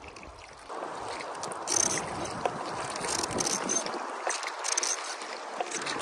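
Wooden oars of an inflatable raft stroking through river water, splashing with each pull, with a few light knocks in between.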